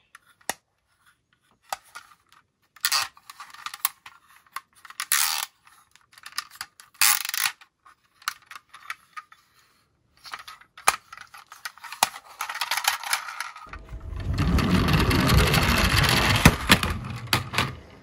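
Hard plastic toys being handled: clicks and short rattles as a plastic toy garbage truck's hinged bin lid is worked and the truck knocks against other toy cars in a cardboard box. About fourteen seconds in, a louder continuous rough rumbling noise takes over.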